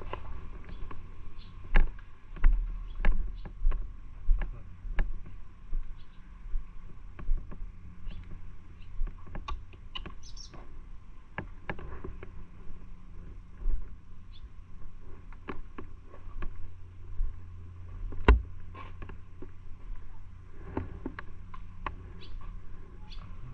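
Irregular clicks, knocks and low thumps from a carried action camera being handled and moved about, over a steady low hum. The knocks cluster in the first few seconds, and there is one sharp knock near the end.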